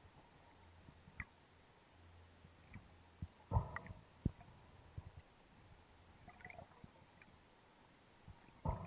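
Underwater handling noise of a speargun: a faint hiss with scattered small clicks and two louder knocks, about three and a half seconds in and near the end, as the shaft, line and gun bump and rub together.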